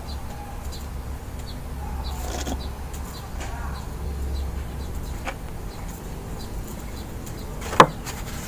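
A steady low hum, with faint short high chirps now and then and a single sharp click shortly before the end.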